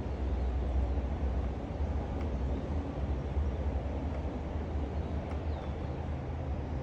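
Steady low background rumble with a faint hiss over it, with no distinct events.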